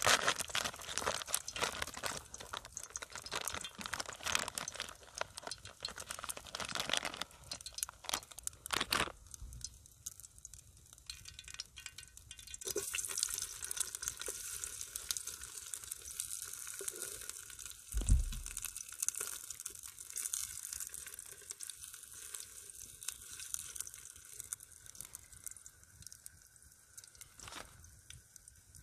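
Sausages sizzling in an oiled grill pan over a wood campfire: dense crackling for the first third, then a steady high hiss once the sausages go into the pan. A single low thump about two-thirds through.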